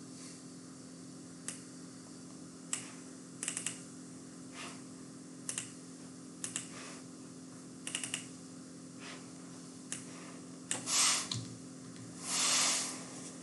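Computer keyboard and mouse clicking sparsely and irregularly, a dozen or so single clicks and short clusters, over a steady low electrical hum. Near the end come two louder, short hissing rushes.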